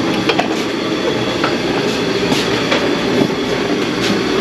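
Steady drone of a running shop machine's motor and fan, with a few light clicks of tools over it.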